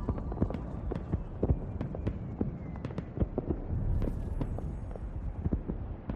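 Irregular crackling pops and clicks over a low, throbbing rumble, with no clear melody or voice.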